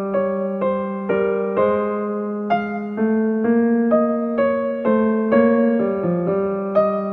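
Background music: a keyboard playing a gentle melody of evenly spaced notes, about two a second, over a held low note.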